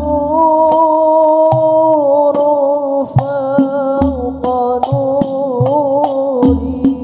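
Hadrah al-Banjari music: voices hold a long, wavering sholawat melody over sharp, quick strikes of terbang frame drums, with a deep bass drum thudding every second or so.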